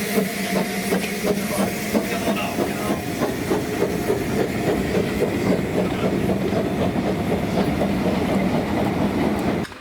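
Narrow-gauge train rolling past, its wheels clicking over the rail joints in a steady clickety-clack. The sound cuts off suddenly near the end.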